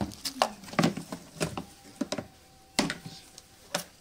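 A clear plastic zip bag of small sprayer spare parts crinkling and clicking as it is handled, in a string of short, sharp crackles and taps.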